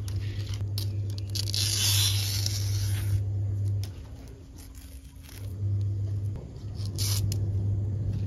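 Coconut leaflets being torn and scraped off their midribs by a gloved hand, a dry tearing and rasping. Under it runs a low steady hum that drops out for a second or so about four seconds in.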